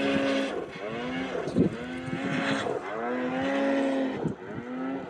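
Snowmobile engine revving up and down repeatedly as the sled climbs through deep snow, the pitch rising and falling about once a second.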